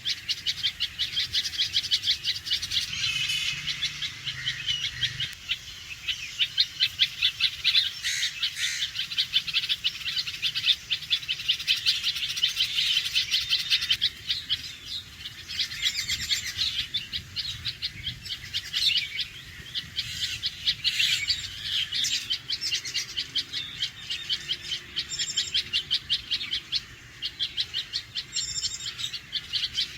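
Red-vented bulbul alarm calling: a rapid, continuous series of sharp, high single notes, several a second.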